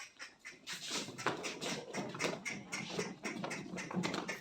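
Goats making short calls amid many irregular clicks and knocks.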